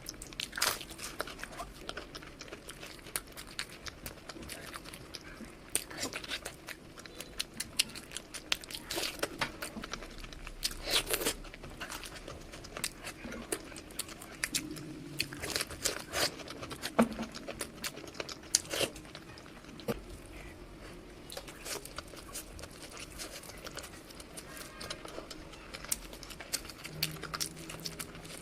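Close-miked eating: someone biting and chewing crisp food, with irregular crunches, some louder bites standing out, about eleven and sixteen seconds in.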